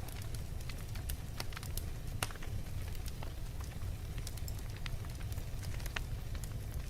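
Wood fire burning in a fireplace, with a steady low rumble and frequent irregular crackles and pops.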